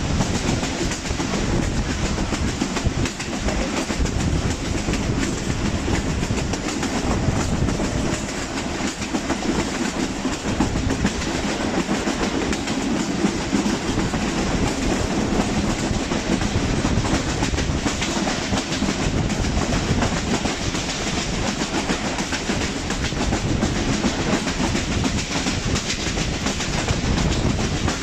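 Moving passenger train heard from an open coach doorway: the steady running noise of the coaches' wheels on the track, with faint clicks scattered through it.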